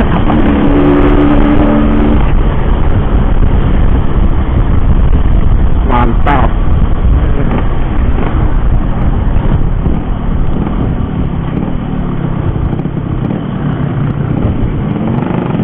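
Yamaha RX-King two-stroke motorcycle on the move, its engine note under heavy wind rush on the rider's microphone. A steady engine tone is clear in the first couple of seconds, and the sound drops somewhat after about ten seconds.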